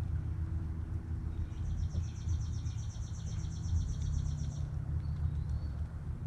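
A small songbird singing one fast, even, high trill of about ten notes a second, lasting about three seconds and starting about a second and a half in, over a steady low rumble.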